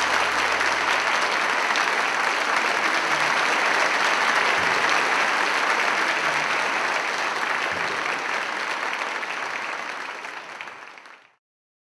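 Audience applauding steadily in a hall, a dense patter of many hands clapping, which fades and cuts off near the end.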